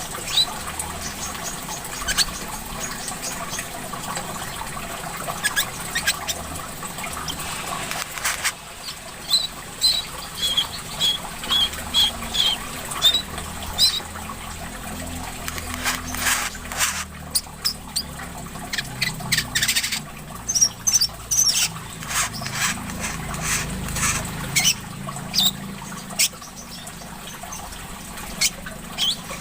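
Small sunbird (korlap) calling in short sharp chirps, with a quick run of repeated high notes about a third of the way in and busier calling in the second half. Under it runs a steady trickle of water.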